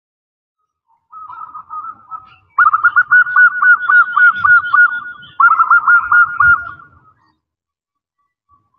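Female zebra dove (perkutut) calling: a fast string of short cooing notes, about seven or eight a second. It starts softly about a second in, grows loud, pauses briefly, then runs on again before stopping. This is the female's call that draws males, used as a lure.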